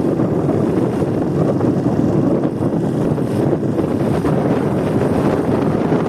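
Steady wind rush buffeting the microphone on a moving motorcycle, with the bike running underneath.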